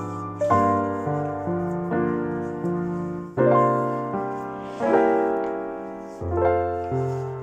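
Slow solo piano music: notes and chords struck every second or so and left to fade.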